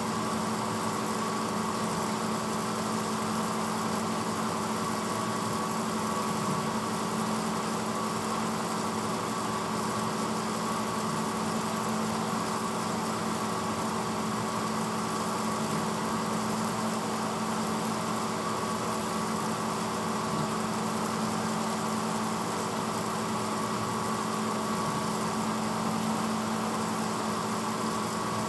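A 1986 Hotpoint Potwasher dishwasher running mid-cycle: a steady motor hum with a few constant tones over an even wash of noise, with no change in level.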